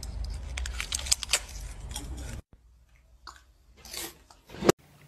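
Crunching and chewing on something hard and brittle: a fast run of crisp crackles that cuts off suddenly about two and a half seconds in. After that it is much quieter, with a few short sounds and one sharp knock near the end.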